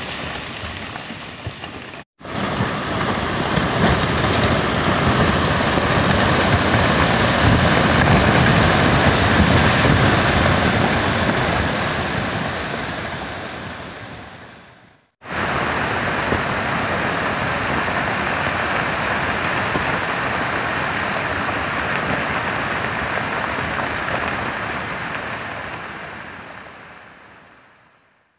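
Landslide of stones and debris pouring down a steep mountainside: a steady rushing noise with no tones. It breaks off abruptly about two seconds in and again about fifteen seconds in, and fades out near the end.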